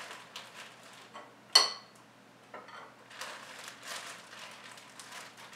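A spoon scraping and tapping against a bowl while whipped cream is scooped into a plastic bag, with one sharp clink about a second and a half in and soft plastic rustling later on.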